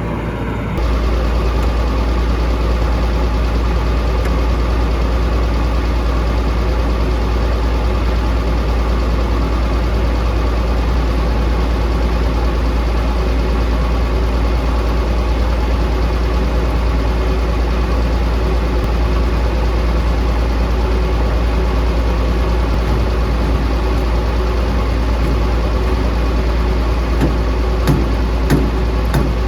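John Deere 6600 combine running steadily, its engine hum stepping up in level about a second in. A few short knocks come near the end.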